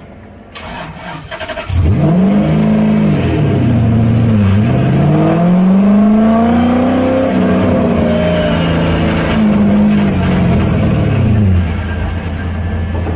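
Lexus SC400's engine revved in several sweeps: a short rev, then a long climb and slow fall, dropping back toward idle near the end. The revving works trapped air out of the freshly refilled cooling system.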